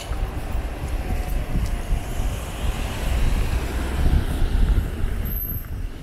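Wind rumbling on a small handheld camera's microphone on a moving bicycle, with street traffic noise; the rumble eases near the end.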